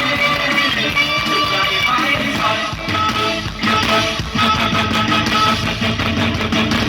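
Live music from an Isan rot hae sound-truck band played loud over its sound system, with a steady beat.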